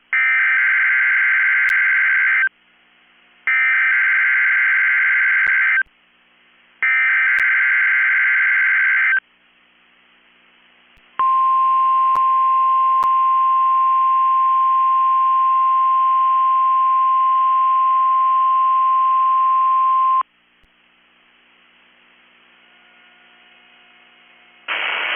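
NOAA Weather Radio emergency alert broadcast for a required weekly test: three buzzy SAME digital data bursts of about two seconds each, a second apart, then a steady single-pitch warning alarm tone (1050 Hz) held for about nine seconds.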